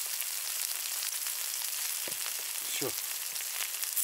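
Chicken sizzling on hot cooking stones: a steady frying hiss with fine crackling throughout.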